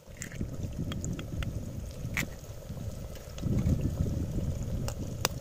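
Low rumble of wind on the microphone, with a few short sharp taps and clicks of a knife cracking eggs over a clay pot, the sharpest about two seconds in and near the end.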